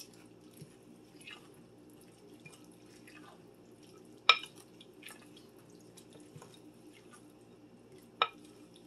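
Wooden spoon stirring a wet, chunky chicken-and-salsa mixture in a glass bowl: soft wet squelches, with a sharp knock of the spoon against the glass about four seconds in and again near the end.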